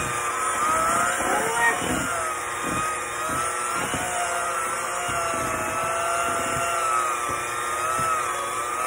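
General Electric electric hand mixer running with its beaters in thick batter, the motor's whine wavering in pitch. Occasional knocks of the beaters against the stainless steel bowl.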